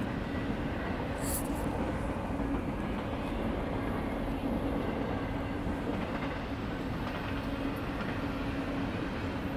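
Freight train rolling past, its boxcars making a steady, unbroken rumble with a low hum.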